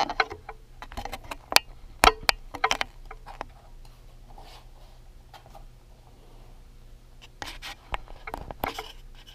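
Hands handling and pressing a sheet of skateboard grip tape onto a Onewheel's rear footpad. A string of sharp clicks and knocks comes in the first three seconds, and scratchy rustling comes near the end.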